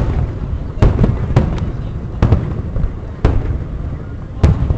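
Fireworks display: about six aerial shells bursting in an irregular sequence, each a sharp bang followed by a low rumble.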